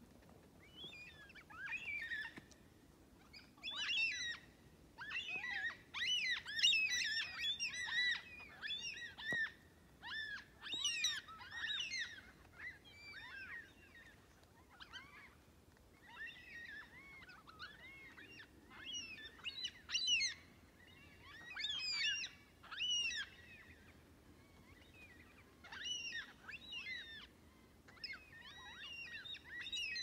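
A feeding flock of black cockatoos calling: many short overlapping calls come in bursts with brief lulls between them, busiest in the first half.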